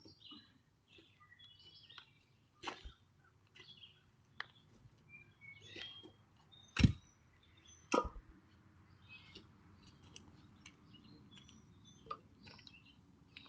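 Small birds chirping on and off, with a few sharp knocks scattered through; the two loudest knocks come about seven and eight seconds in.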